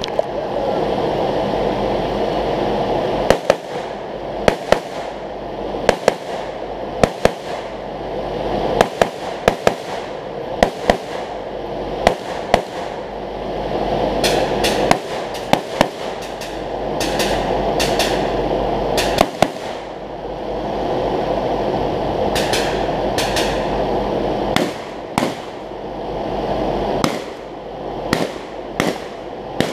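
Rapid gunfire from a shooter working through a shooting stage: sharp shots, mostly in quick pairs about a quarter second apart, some thirty to forty in all, with short pauses between strings. A steady background hiss runs underneath.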